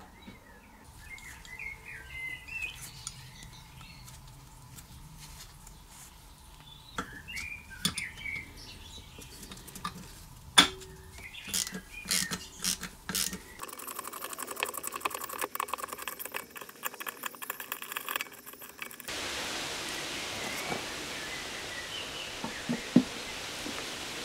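Hand work on a small engine block: squeaks as parts are handled, then sharp metal clicks, with one loud click midway. After that comes a quick run of ratchet clicking as bolts are driven, and the last few seconds are an outdoor hiss with faint bird chirps.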